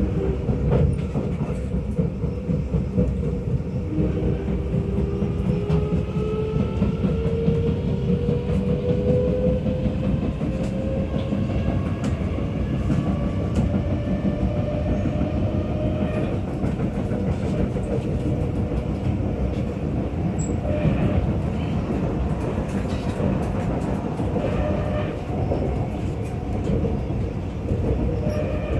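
Kawasaki Nippon Sharyo C751B metro train running, heard from inside the carriage: a steady rumble of wheels on rail, with a motor whine that rises slowly in pitch over the first half and then holds. Knocks from flat spots on the train's wheels run through it.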